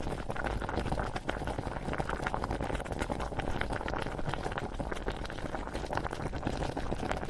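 Bubbling cauldron sound effect: boiling liquid bubbling and popping densely and steadily.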